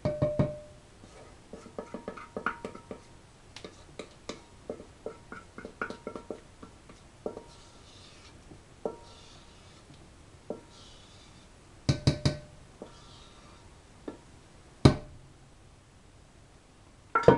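Spatula scraping rosehip puree out of a stainless steel bowl, with irregular taps and knocks on the metal that ring briefly. A cluster of louder knocks comes about two-thirds of the way through, and a single sharp knock follows shortly after.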